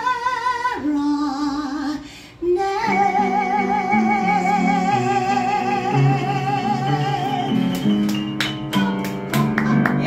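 A woman's voice holds the song's final long note with wide vibrato over piano chords. Near the end, the piano closes with a series of sharply struck chords.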